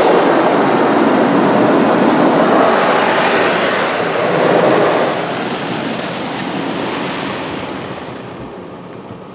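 PDQ Tandem Surfline car wash spraying water and scrubbing with its brushes against the car, heard from inside the cabin as a loud, steady rushing and pattering. It eases off gradually from about five seconds in.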